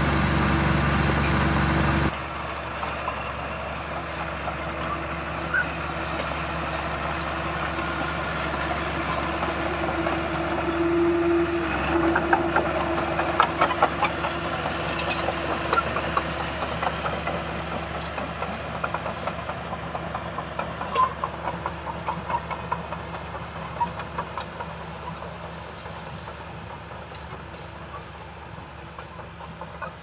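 Diesel engine of a small crawler bulldozer running as it pushes earth, with frequent clanking from its tracks and blade. It grows fainter over the last several seconds as the dozer moves away. For the first two seconds a louder, closer engine runs, heard from the operator's seat, and it cuts off abruptly.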